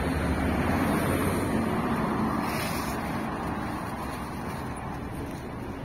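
Road traffic: the engine and tyre noise of vehicles on the street, loudest in the first couple of seconds and then easing off.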